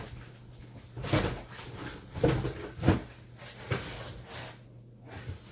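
Objects being moved around and set down on a desk: a string of knocks and clatters, the loudest about two to three seconds in, over a faint steady low hum.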